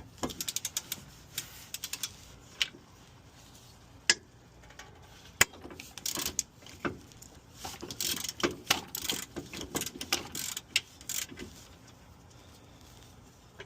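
Ratchet wrench on an extension clicking in short runs while a 17 mm wheel hub bolt is backed out, with a few single sharp metal clinks between the runs.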